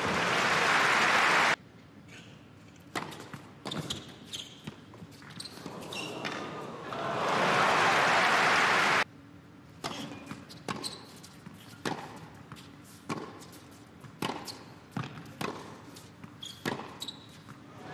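Crowd applauding after a point, cut off abruptly about a second and a half in. Then come the sharp knocks of a tennis ball being bounced and struck by rackets. Applause swells again midway and cuts off suddenly, followed by more ball bounces and racket hits, and the applause starts to rise again at the very end.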